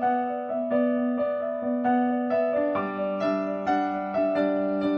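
Background music: a keyboard playing evenly struck notes, about two a second, with a change of chord a little past halfway.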